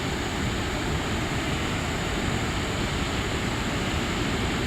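Waterfall's steady roar: a constant rush of falling water with no breaks or changes.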